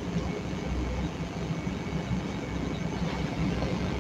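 Steady low background hum and hiss with no distinct events.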